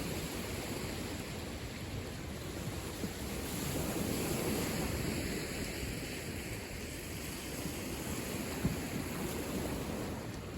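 Waves on the Lake Michigan shore washing steadily, with wind noise on the microphone. The wash swells a little about four seconds in.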